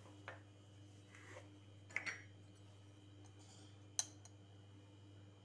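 Faint clicks and taps of kitchen utensils being handled, three in all, the sharpest about four seconds in, over a low steady room hum.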